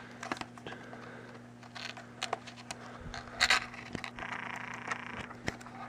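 Cardboard retail packaging being opened by hand, the inner tray slid out of its box: scattered scrapes, rustles and small clicks, with a louder scrape about three and a half seconds in. A faint steady low hum runs underneath.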